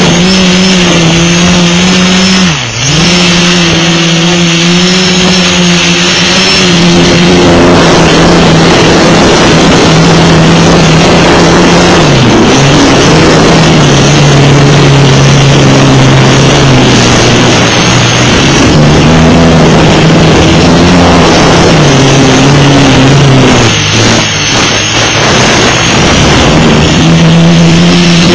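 Quadcopter's electric motors and propellers droning loudly close to the onboard phone's microphone, the pitch dipping and shifting as the throttle changes. A rushing hiss joins from about seven seconds in.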